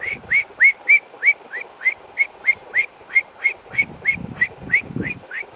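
A person whistling a quick run of about eighteen short rising notes, about three a second, close and loud.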